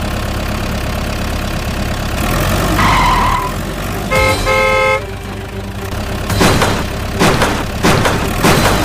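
Cartoon truck engine running steadily, with a single beep and then two short horn toots about four seconds in. A series of knocks follows near the end.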